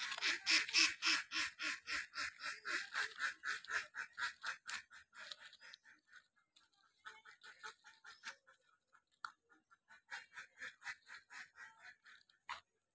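Puppies chewing and crunching cookies and the crinkly plastic wrapper in quick, regular bites, about five a second. The chewing is loudest over the first few seconds, thins out, then picks up again near the end.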